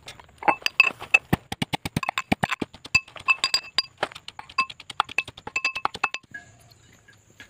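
Metal pestle pounding ginger in a metal mortar: rapid ringing metallic strikes, several a second, stopping about six seconds in.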